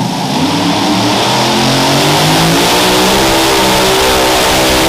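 Modified pulling tractor's twin supercharged V8 engines revving up as it launches under load, the pitch climbing steadily for about three seconds and then holding high at full throttle.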